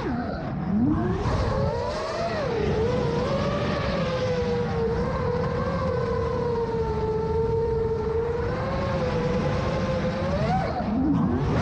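The 2806-size brushless motors and propellers of a 7-inch FPV quadcopter whining in flight, the pitch rising and falling with throttle, over a rush of wind.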